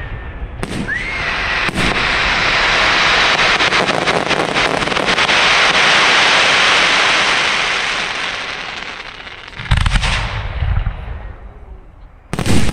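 Aerial fireworks: two sharp shell bursts, then a dense crackle of many small pops that swells and fades over several seconds, then two heavy booms near the end.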